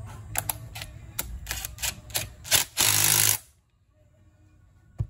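Metal clicks of a socket being fitted and the flywheel nut being run on, then about half a second of a cordless impact driver hammering the flywheel nut tight, cutting off sharply. One more sharp click near the end.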